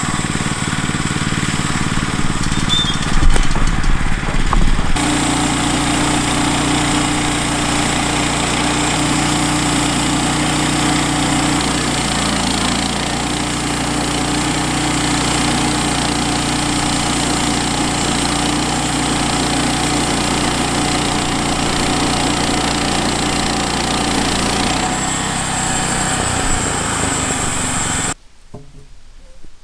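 Woodland Mills HM122 portable bandsaw mill running, its small gasoline engine driving the band blade through a cedar log. A few louder knocks come a few seconds in, the sound shifts abruptly twice, and it drops away sharply near the end.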